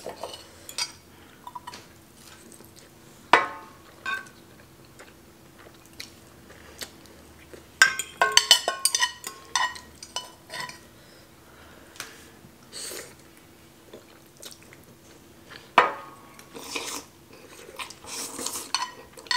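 Metal chopsticks and utensils clinking and scraping against a metal pot and a glass baking dish while instant ramen noodles are eaten and served, with soft chewing between. There are a few single sharp strikes that ring briefly, and a quick flurry of clinks around the middle as noodles are lifted out of the glass dish.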